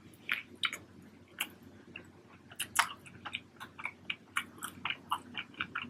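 A person chewing a mouthful of smash burger close to the microphone: soft, irregular wet mouth clicks and smacks, coming more often in the second half.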